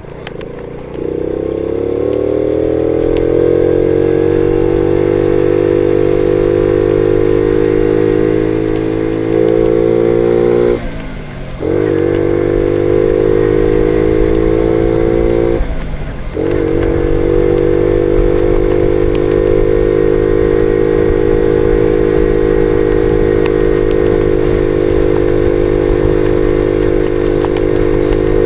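Jawa Betka 50 moped's engine pulling away, its note rising over the first few seconds. It briefly drops and picks up again about eleven seconds in and once more about five seconds later, like gear changes, then runs steadily at cruising speed.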